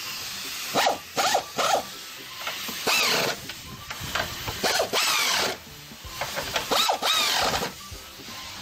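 Ratchet wrench being worked on the strut top-mount nuts of a Mazda Premacy: a series of short, irregular rasping strokes, several with a squeak that slides in pitch.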